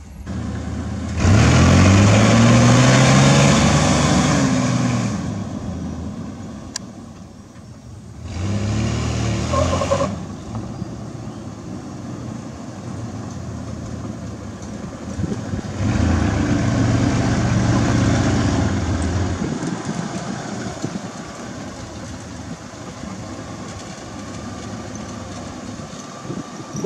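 GMC Sierra pickup's engine and exhaust revving as the truck accelerates three times, about a second in, around eight seconds and around sixteen seconds. Each rev climbs in pitch and then eases off, with quieter running between and after.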